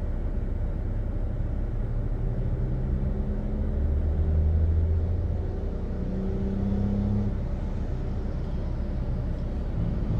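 Low, steady engine rumble heard from inside a car's cabin as a truck hauling half of a mobile home approaches. The engine tone swells twice.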